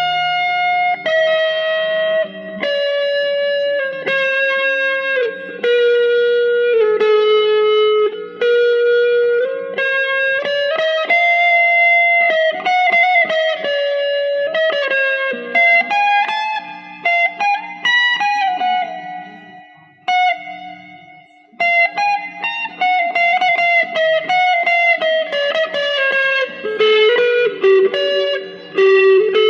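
Electric guitar played through a Joyo DC-15 practice amp: a slow single-note melody of held notes with an effect on them, falling in pitch at first and climbing later, with a short pause about two-thirds of the way through.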